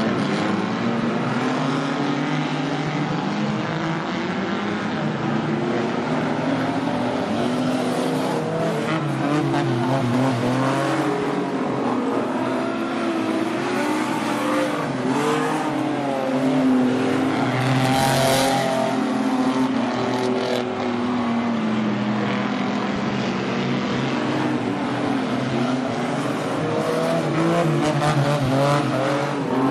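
A pack of speedway stock cars racing on a dirt oval, several engines running hard at once, their pitches overlapping and rising and falling as the cars power down the straights and lift off into the turns.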